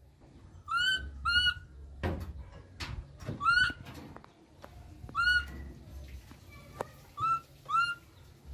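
A baby macaque calling: six short, high-pitched coos, each sliding up and then levelling off, in two pairs and two singles. A few faint knocks come in between.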